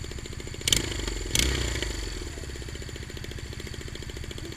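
Honda Rebel 250 motorcycle engine running with an exhaust leak at the header, where the header nuts have loosened and fallen off, giving a rapid pulsing exhaust note. Two sharp bursts come about a second apart near the start, each followed by a short swell that dies back to the steady run.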